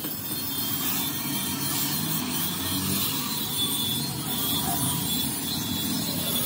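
Oxy-fuel cutting torch running steadily as it cuts through steel plate, an even hiss, with a low hum underneath.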